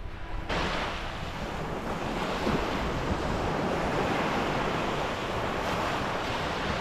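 Surf washing onto the beach as a steady rushing noise, with wind on the microphone; it sets in abruptly about half a second in.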